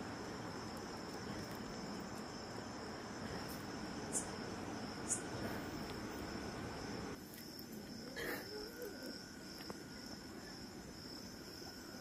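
Crickets chirping in a steady high trill over a background hiss, with a brief louder sound about eight seconds in.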